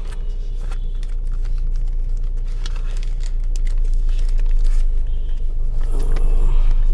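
Sheets of paper rustling and crinkling as they are handled and leafed through, many short crackles, over a steady low hum inside a car cabin.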